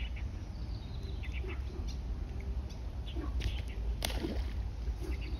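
Birds chirping in short, high calls over a steady low rumble, with one sharp click about four seconds in.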